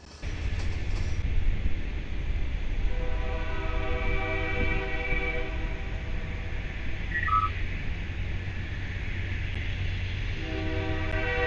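A lashup of Union Pacific diesel locomotives passing close by, their engines making a heavy, steady low rumble. A locomotive chord horn sounds a long blast about three seconds in and starts another near the end, as locomotives blow for a street grade crossing.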